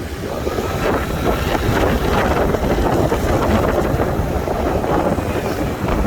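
Wind rushing over the microphone on a moving motorbike, a steady loud rumble.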